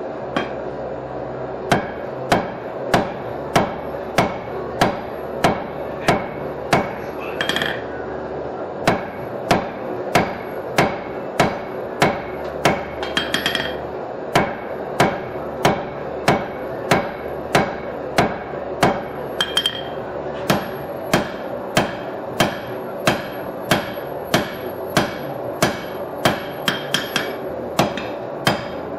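A hand hammer repeatedly striking a red-hot steel blade on an anvil, about one and a half blows a second, forging the blade. The blows pause briefly twice, over a steady background noise.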